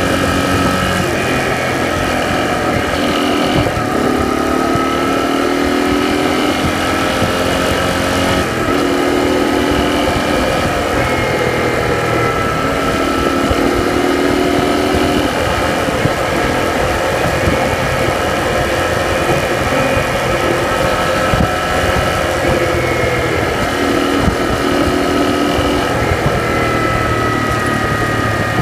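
A small vehicle's motor running steadily while driving, with a constant high whine and a lower hum that drifts a little in pitch now and then.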